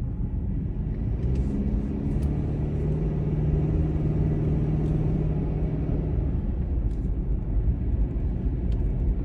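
Car interior while driving: steady low road and engine rumble, with the engine's hum rising in pitch about a second in and then holding steady for a few seconds.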